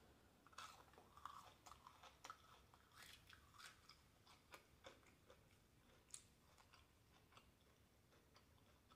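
Faint close-up chewing of a fried nugget: scattered soft crunches and wet mouth clicks.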